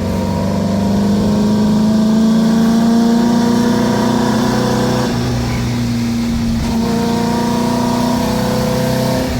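VW Brasília's air-cooled 1600 flat-four engine, fed by dual carburettors, pulling under acceleration, heard from inside the car. The pitch climbs steadily, drops at a gear change about five seconds in, then climbs again.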